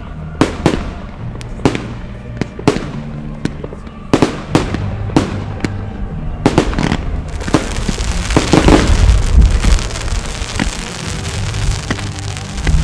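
Fireworks going off: a quick run of sharp bangs and cracks for the first six or seven seconds, then from about seven seconds in a dense crackling over a low rumble that carries on to the end.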